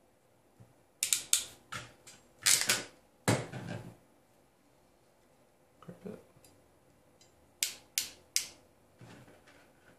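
Hand crimp tool clicking as it is squeezed shut on a socket pin on a thin wire: a cluster of sharp clicks in the first few seconds, a soft knock around the middle, and three sharp clicks near the end.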